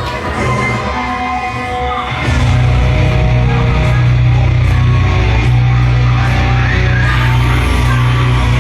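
Loud heavy rock music that comes in fuller and heavier about two seconds in, over a steady pounding bass.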